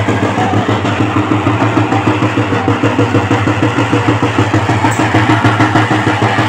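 An engine running at idle, loud and steady with a fast, even pulse.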